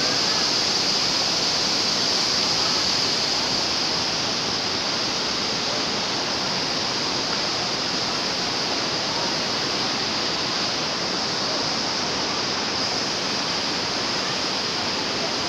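Fast floodwater rushing in a steady torrent, an even roar of water with no breaks.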